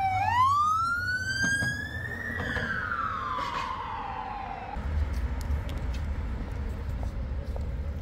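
Emergency vehicle siren wailing: the tone sweeps up, then falls away and stops a little past halfway. A low rumble of road traffic follows.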